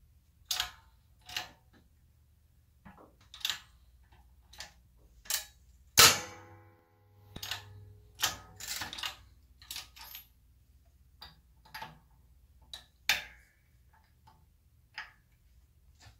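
A eucalyptus board cracking under the ram of a press. Irregular sharp cracks and pops come as its fibres split and the board breaks, with the loudest crack about six seconds in, followed by a short ringing.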